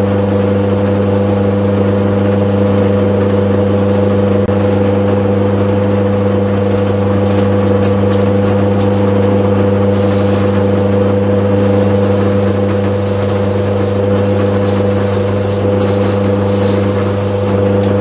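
Pillar drill motor running steadily as a makeshift lathe drive, spinning a wooden dowel. Abrasive paper is held against the turning wood, and its hiss grows louder about halfway through, with a few brief breaks.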